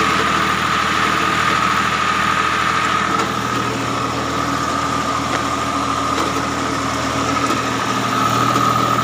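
Tractor engine running steadily while pulling a seed drill during sowing, with a steady high whine.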